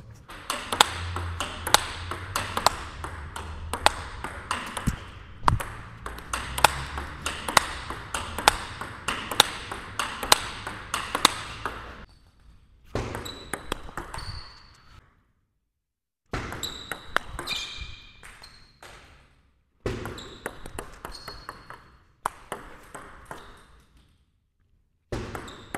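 Table tennis rally: the ball clicks sharply off the bats, which are faced with Nittaku Genextion rubber, and bounces on the table, a few hits a second. The play breaks off suddenly and starts again several times.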